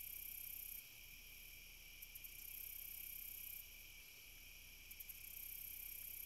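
Faint insects calling: a steady high-pitched chorus, with an even higher trill that switches on for a second or more every few seconds, each time led by a few quick ticks. A faint low hum runs underneath.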